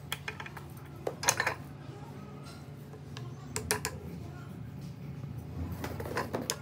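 Small hammer tapping handle spacers down onto a knife tang held in a bench vise: short clusters of metallic taps and clinks, the loudest about a second in, others near four and six seconds in, over a steady low hum.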